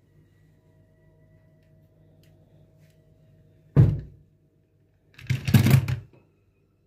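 A die-cast toy car is set down on a laminate countertop with one sharp knock. About a second and a half later comes a brief noisy scrape and splash as it goes into the soapy water of a stainless-steel sink.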